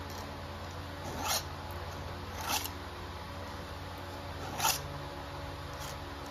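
Round file rasping across a chainsaw chain's cutter tooth in three short strokes a second or two apart, over a steady low hum.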